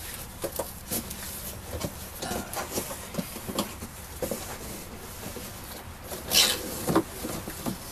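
Cardboard shipping box being opened by hand: its flaps scrape and rub as they are pulled back, with scattered light knocks. There is a louder cardboard scrape about six seconds in.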